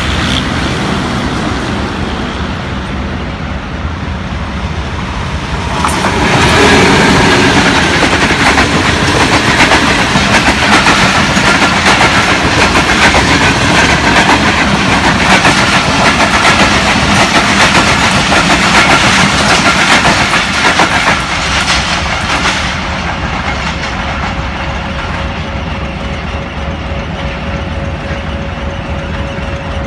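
Pakistan Railways express passing through: the PHA-20 diesel-electric locomotive comes by about six seconds in. Its coaches' wheels then clatter over the rail joints in a fast, dense run of clicks for about fifteen seconds. The sound eases off after that, and a steady tone sets in near the end.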